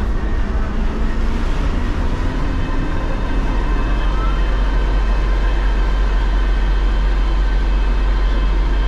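Diesel locomotive standing at the head of a passenger train with its engine idling: a steady, loud low drone with a faint, even high whine over it.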